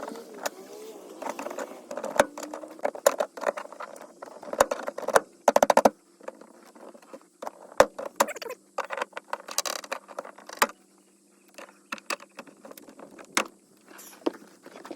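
Clicks, taps and rattles of hands and tools working plastic interior trim panels and push clips loose inside a pickup cab. A quick run of rapid clicks comes about five and a half seconds in.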